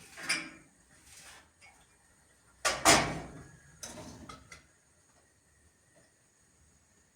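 Household objects being handled and moved: a few short scraping knocks, the loudest about three seconds in, like a drawer or door being slid and bumped.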